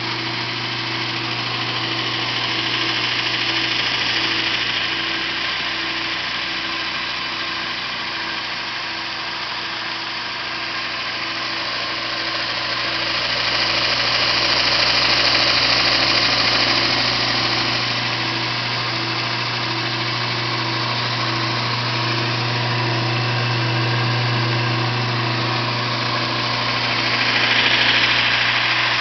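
Viel 1" x 42" belt sander/grinder running steadily with its electric motor and belt, a continuous hum and hiss with a faint regular beat, swelling slightly louder a few times.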